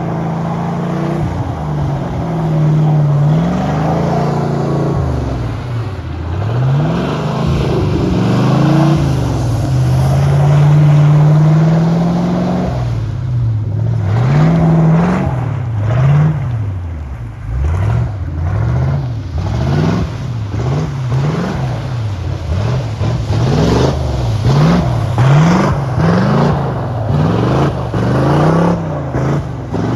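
Engine of a lifted Nissan 240SX revving up and down while it does donuts on an iced-over road. The revs sweep up and hold high for a few seconds before the middle, then pump up and down about once a second.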